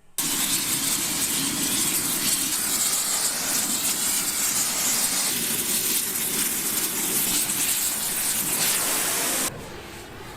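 A loud, steady hissing rush, like a jet or blast of air, that starts suddenly and cuts off abruptly about nine and a half seconds in, leaving a fainter rushing noise.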